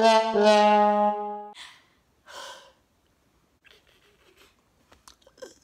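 Short brass comedy sting of descending held notes, ending on a long low note that stops about a second and a half in. Soft breathy noises and faint small clicks follow.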